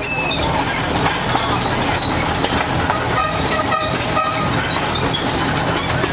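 Amusement-park track tram running, heard from on board: a steady low motor hum and rolling rumble, with a few short high squeaks about three to four seconds in.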